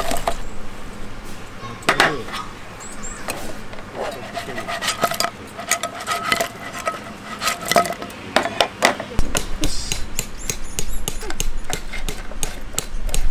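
Fried chicken wings tipped from a bowl into a frying pan of sauce, then tossed and turned with tongs: a run of sharp clacks and scrapes of the tongs and wings against the pan.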